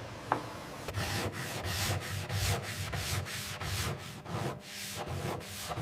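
Sandpaper rubbed back and forth over a plywood panel by hand, in quick even strokes about four a second, starting about a second in after a single light click.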